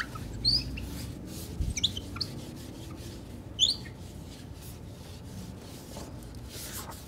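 A Kimwipes tissue rubbing over a plastic screen-protector overlay on a monitor face, with a few short high squeaks about half a second, two seconds and three and a half seconds in. The wiping cleans the overlay and works out small remaining bubbles beneath it.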